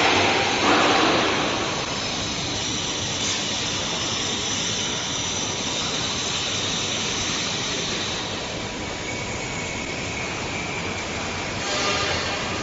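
Steady machinery noise, an even rushing hiss with no distinct knocks or strokes, a little louder in the first second and again near the end.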